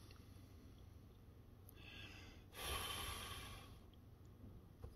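Near silence, broken by one soft breath out through the nose about two and a half seconds in, lasting about a second.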